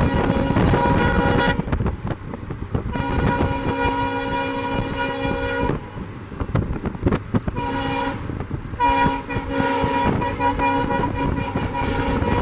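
WDP4 diesel locomotive's horn blown in repeated blasts: one already sounding that stops about a second and a half in, a three-second blast, a short toot around eight seconds, and a long blast held to the end. Under them is the rumble of the train running through at speed.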